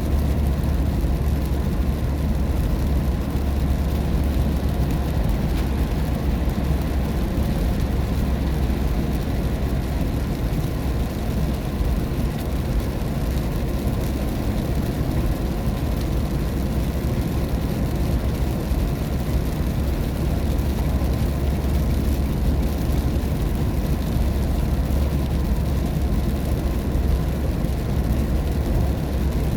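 Steady cabin noise of a car driving on a highway in the rain: a deep, even drone from the tyres and engine, with the hiss of rain and wet road underneath.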